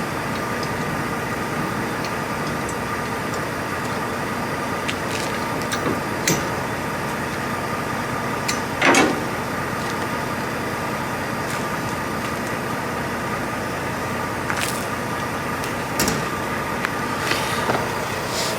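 Semi-truck's diesel engine idling steadily, with several short knocks and clanks over it, the loudest about nine seconds in.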